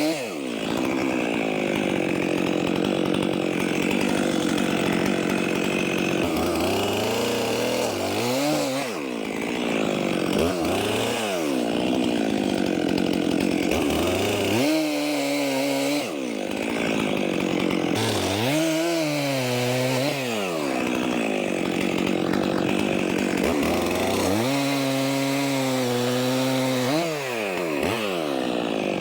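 Stihl MS 400 C two-stroke chainsaw running hard while bucking logs, its engine speed dipping and climbing again several times between and during cuts. The logs are caked in dirt, which is dulling the chain.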